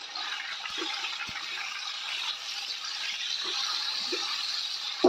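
Diced raw chicken breast sizzling in hot oil in a metal wok, a steady hiss, with a few faint scrapes of a spatula stirring it.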